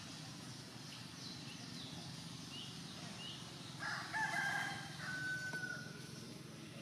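A rooster crowing once, about four seconds in, ending on a long held note. Before it, a few short high chirps from a small bird.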